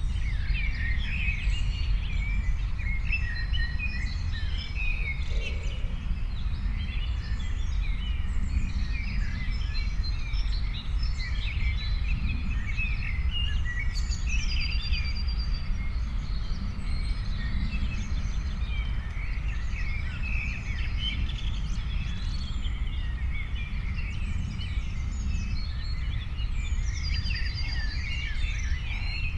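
Many songbirds chirping and singing at once, a dense overlapping chorus of short chirps and trills, over a steady low rumble.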